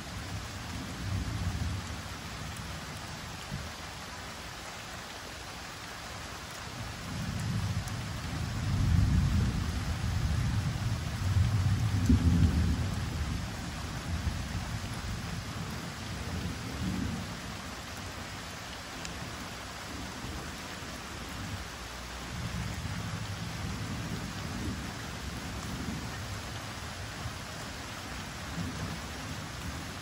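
Steady gentle rain with rolling thunder. A long rumble builds about a quarter of the way in and is loudest near the middle, then fainter rumbles follow.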